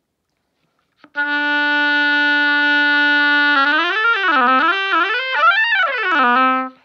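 An oboe plays a held low D for over two seconds, then a short run of notes up and down, ending back on the low note. It is being played to test the low notes after the bridge key adjusting screw has been turned.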